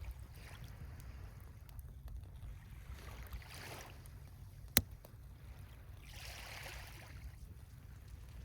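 Sea waves washing up the beach and drawing back, two swells of hiss rising and fading a few seconds apart over a steady low rumble. A wood fire crackles faintly, with one sharp pop near the middle.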